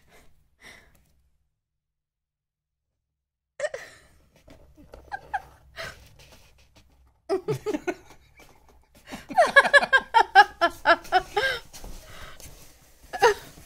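A woman laughing, starting softly about four seconds in and growing into a run of loud, quick laughs around nine seconds in.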